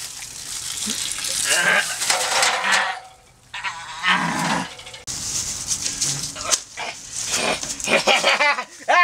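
Wordless vocal cries and squeals, mixed with rustling and scraping noise; they break off briefly about three seconds in.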